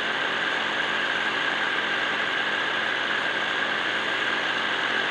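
Steady whine of the propeller motor on the small aircraft carrying the camera, heard close up on the onboard microphone with a hiss of wind. The pitch holds level throughout.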